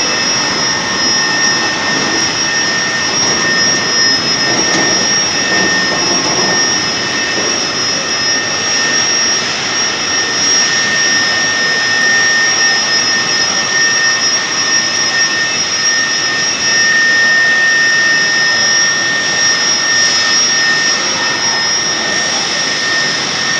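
Food-processing line machinery running in a factory hall: a loud, steady mechanical din with two constant high-pitched whines over it.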